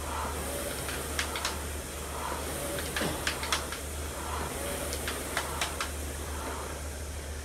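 Concept2 air-resistance rowing machine being rowed hard: the flywheel whooshes up on each drive, about one stroke every two seconds, with a few sharp clicks at each stroke, over a steady low hum.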